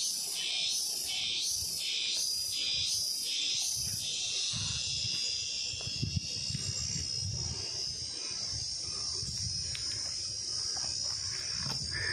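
Forest insects calling: a high, pulsing buzz at about two pulses a second that stops about four seconds in, leaving a steady high-pitched drone. A low rumble sits beneath, with a thump about six seconds in.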